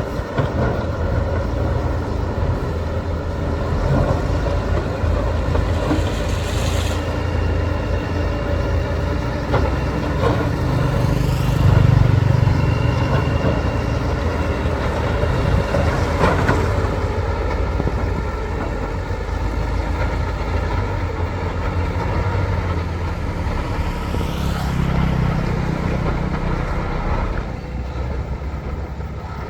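Heavy diesel construction machinery running steadily, its engine swelling in revs and easing off twice, about eleven seconds in and again near twenty-five seconds.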